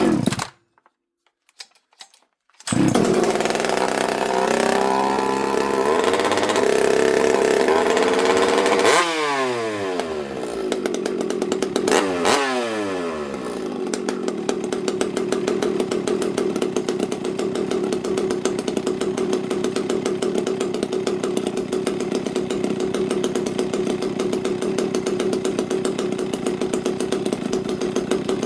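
Hand-ported two-stroke chainsaw starting on the choke about three seconds in and running, its revs falling away twice, near nine and twelve seconds, before it settles into a steady run. It is running a little on the rich side, in the owner's words, on year-old fuel with the low jet just adjusted.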